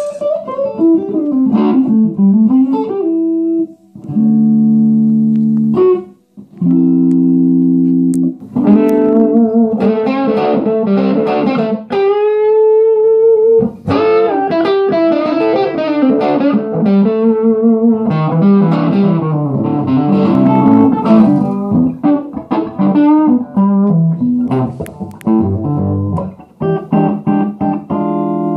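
Electric guitar played through a 6V6 valve-powered 20-watt 1x12 combo amplifier. Single-note lead runs, with two held chords a few seconds in and a note bent upward about twelve seconds in.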